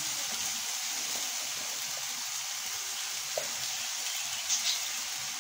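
Steady frying sizzle from a pot of onion and chickpeas as wet, freshly washed zucchini pieces are pushed in on top, with a few faint soft ticks.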